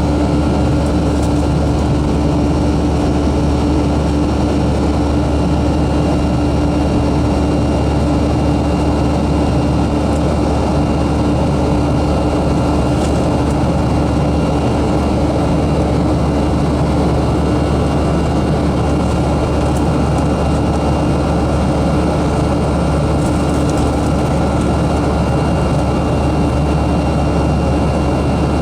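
Boeing 737-300 airliner cabin noise in flight: the steady drone of its CFM56 jet engines and airflow, with a constant low hum.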